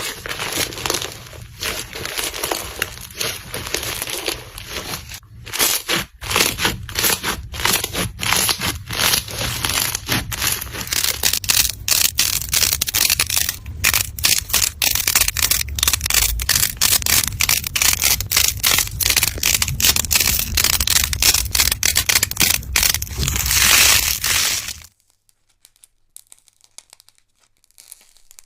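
Slime being squeezed and pressed by hand: a dense stream of crackles and pops. It stops suddenly about three quarters of the way in, leaving only a few faint clicks.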